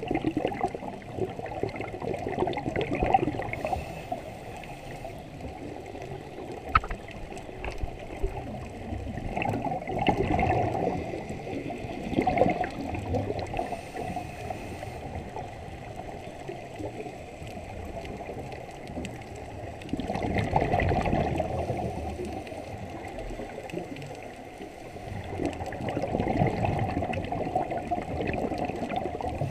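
Underwater scuba breathing through a regulator: exhaled bubbles gurgle out of the exhaust in swells every several seconds, dull and low as heard through a camera housing.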